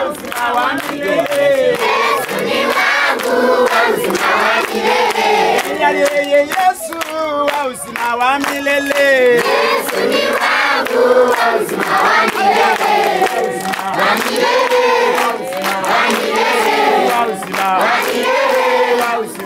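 A crowd of worshippers' voices raised together, loud and overlapping, as in collective prayer or singing, with no single voice standing out.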